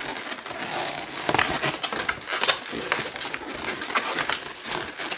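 Latex 260 twisting balloons squeaking and rubbing in short, irregular bursts as they are wrapped around each other and twisted tight by hand.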